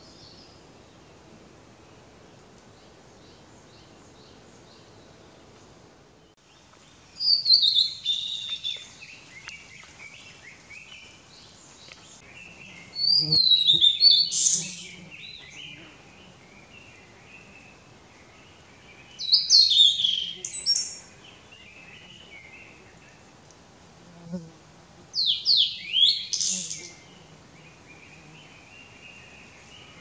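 Male blue-and-white flycatcher singing four phrases about six seconds apart, starting about seven seconds in. Each phrase is a run of clear whistled notes sliding down, trailing off into lower, scratchier twittering. This is a mountain individual whose song differs markedly from that of lowland birds.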